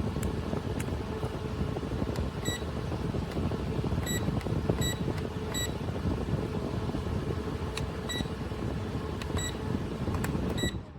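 Rechargeable camping fan running with its airflow rushing over the microphone, while several short electronic beeps sound as its settings are changed. The sound fades out at the end.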